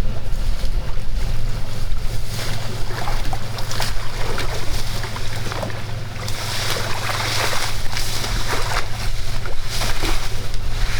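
A tour boat's engine idling with a steady low hum, while water splashes and sloshes in irregular bursts, loudest in the middle of the stretch.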